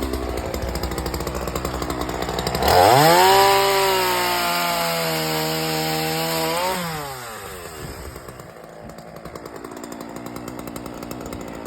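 Chainsaw idling, then revved up with a rising whine about three seconds in. It is held at high revs for about four seconds, then let off so the pitch falls back to a quieter idle.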